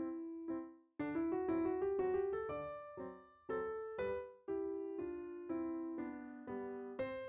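Background music: a gentle piano melody of single struck notes that ring and fade, with a short break about a second in.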